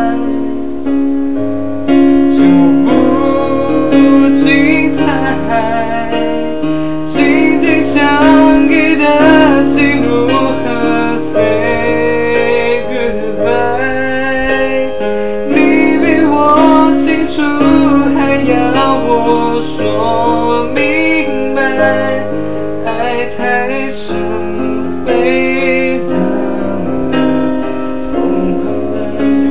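Yamaha portable electronic keyboard playing a slow ballad accompaniment in a piano voice: sustained chords over bass notes that change every second or two, with a wavering melody line above them.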